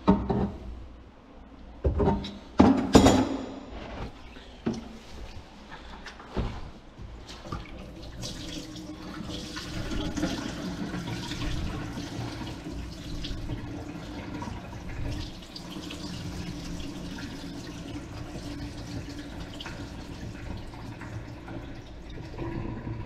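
A few knocks and clunks in the first three seconds, then from about eight seconds in a kitchen sink faucet runs steadily into the sink, testing the just-snaked drain.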